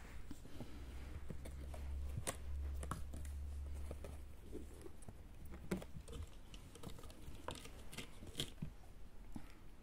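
Kittens' paws scampering and scratching on a corrugated cardboard scratcher, a scatter of irregular light taps and scrapes. A low rumble runs under the first four seconds or so.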